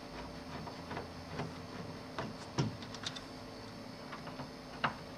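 Faint scattered clicks and light knocks of hands handling parts and cables inside the open back of a TV, over a steady low hum.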